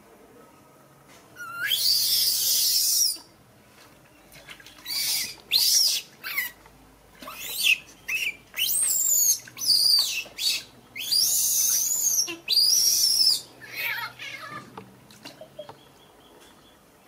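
Infant monkey screaming while being bathed: about ten shrill calls, each rising then falling in pitch, the first and several later ones drawn out, with short gaps between them.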